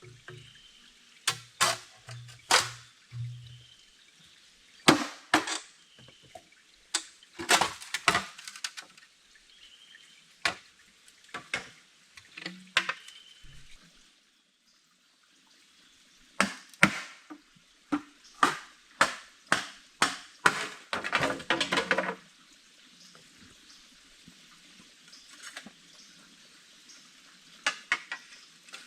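Irregular sharp knocks and clatter. About two thirds of the way through comes a run of evenly spaced strikes at roughly two a second, then a short flurry of clatter.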